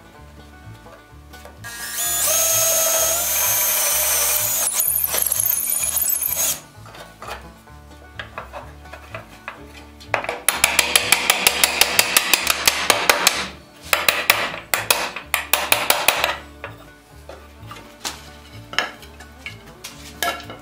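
A power drill running into wood for about four seconds with a steady whine, then a rapid run of hand-tool scraping strokes on wood, about five a second, for about six seconds, over background music.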